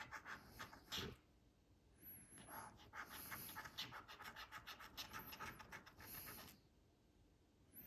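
Coin scratching the coating off a paper scratch-off lottery ticket in quick, rapid strokes, faint, in two bouts with a pause of about a second between.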